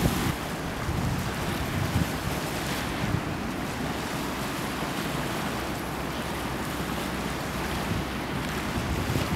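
Wind buffeting the microphone over a steady rush of river water, gusty at first and then steadier; no ship's engine stands out.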